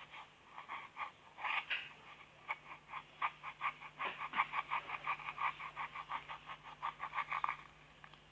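Slime being squished and worked in the hands, making a quick run of sticky wet clicks and pops, about five or six a second through most of the stretch.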